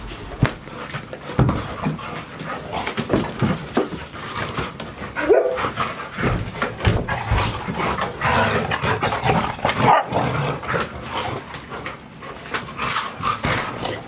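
Golden retriever puppies playing, with panting, scuffling knocks and clicks, and a short rising whine about five seconds in.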